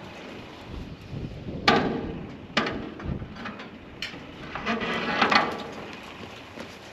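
Two sharp knocks about a second apart, then a longer rattling clatter about five seconds in, with smaller clicks between.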